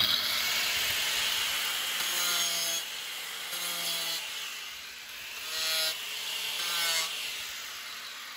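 Makita handheld diamond-blade cutter running and grinding into the pool's edge to cut score lines, so that the AC3 tile mortar grips better. The motor's pitch sags and recovers as the blade bites, and the sound trails off near the end.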